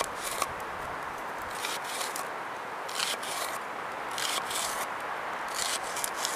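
Kitchen knife slicing through a red onion onto a wooden board: about a dozen crisp cuts, several coming in quick pairs.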